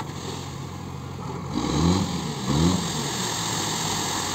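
Tipper truck engine running as the bed tips and dumps its load of sand, revved briefly twice about halfway through. A steady rushing hiss comes in from about a second and a half in as the load slides out.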